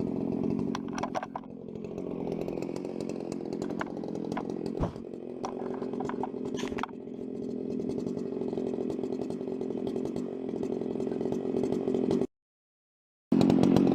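Two-stroke chainsaw on an Alaskan chainsaw mill running steadily, with scattered clicks and knocks. The sound cuts out completely for about a second near the end, then comes back louder.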